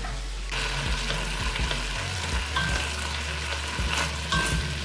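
Strips of salted beef (cecina) frying in a little oil in an enamelled cast-iron pot: a steady sizzle that starts abruptly about half a second in, stirred with a wooden spoon, with occasional light knocks.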